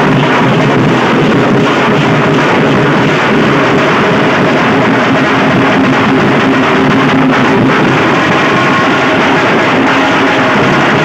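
A street dhol band of many large double-headed barrel drums beaten with sticks, playing loud and without a break, the drumming blurred into a dense din.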